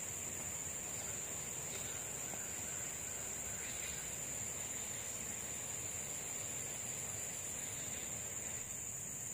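Steady high-pitched drone of an insect chorus in swamp forest, with a few faint bird calls over it.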